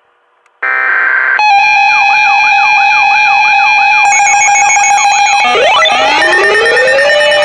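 Emergency weather alert tones. After a brief pause comes a short buzzing data burst, then a loud layered electronic alarm: a steady tone with repeated sweeping tones over it, changing about five and a half seconds in to a mass of rising glides.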